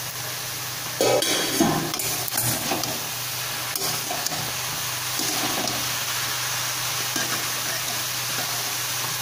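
Grated carrots sizzling in a metal kadhai as they are stirred with a metal slotted spoon, with a few loud clinks and scrapes of the spoon against the pan between about one and two and a half seconds in. The carrots are cooking off the juice they released.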